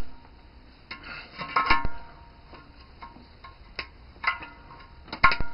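Scattered metal clinks and scrapes with short ringing tones as a screwdriver and hands work the steel tension band loose from a CRT picture tube, with a quick cluster of clinks near the end.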